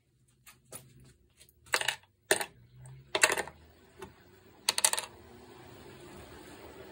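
Sharp metal clinks and knocks, about six over the first five seconds, as the carburetor in its wire-handled dip basket is handled at the parts-cleaner can. A faint steady hiss follows.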